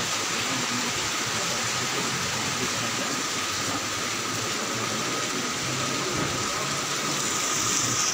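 Steady, even rushing hiss with faint murmuring voices underneath.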